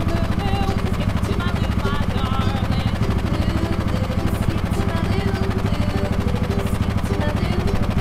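An engine running steadily with a fast, even pulsing throb.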